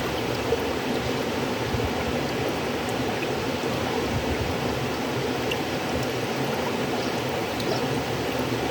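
River water flowing steadily, a continuous even rush with faint small splashes and trickles.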